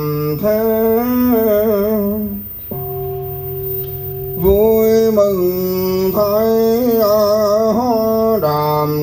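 A male voice chanting a Vietnamese Buddhist liturgy for the Buddha-bathing rite in long, melodic held notes that step up and down in pitch. A lower note is held flat for about a second and a half near the middle.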